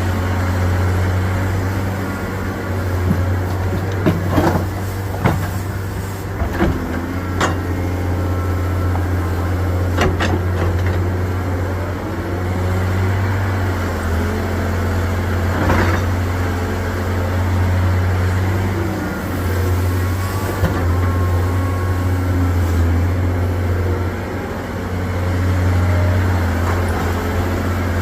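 Caterpillar excavator's diesel engine running steadily under load while it digs mud, with a strong low hum that eases off and comes back several times, and a scattered handful of sharp knocks.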